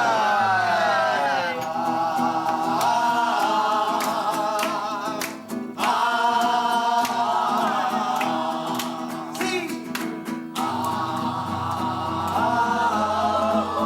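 Music: voices singing a song in long held notes over instrumental accompaniment with a steady bass line.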